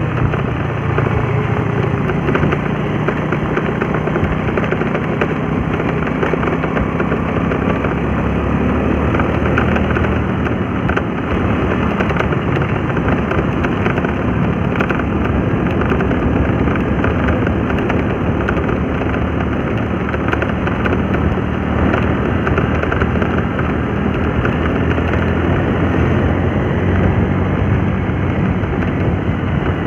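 Motorised two-wheeler running steadily at road speed: a constant engine hum with a steady rush of road and wind noise over it.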